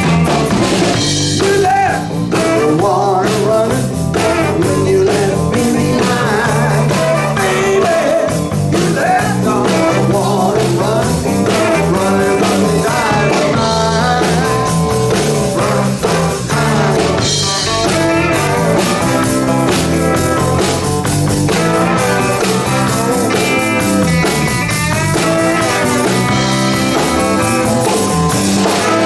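Live band playing a blues number.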